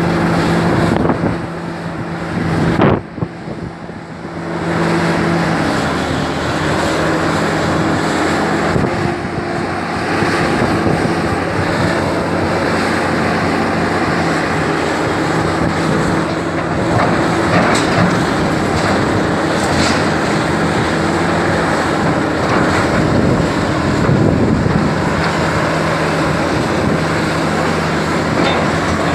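Diesel engine of a large hydraulic excavator running steadily, a continuous hum with broad mechanical noise over it. The sound drops away abruptly about three seconds in, then comes back and runs on evenly.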